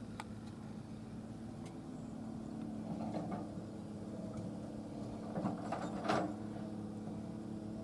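Heavy diesel machinery engine running steadily, with a few clanking, scraping noises about three seconds in and again, loudest, around six seconds in.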